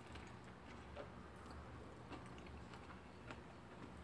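Quiet chewing of a mouthful of crispy breaded fried chicken: a few faint soft clicks over a low steady hum.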